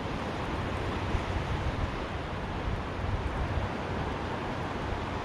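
Steady surf washing on a beach, with wind on the microphone.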